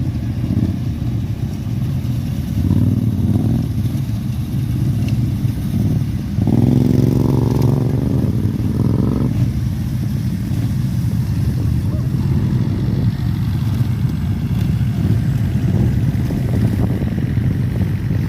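Several lawnmower petrol engines running together in a steady low drone. About six seconds in one engine comes up louder with a clear pitched note, then drops back about three seconds later.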